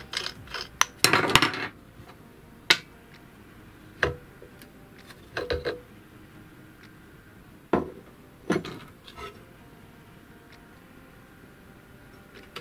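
Metal parts of a Soviet IE 9701 bench grinder clinking and knocking as it is taken apart by hand: the outer flange and grinding wheel come off the shaft. A short rattling scrape about a second in, then single knocks and clinks spread through the rest.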